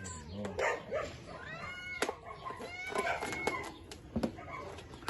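Several domestic cats meowing over one another in short, rising-and-falling calls, excited for treats, with a few sharp clicks among them.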